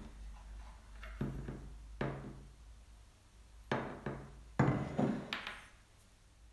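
A series of short knocks, in small groups, as glass sauce bottles and metal spoons are handled and set down on a tabletop.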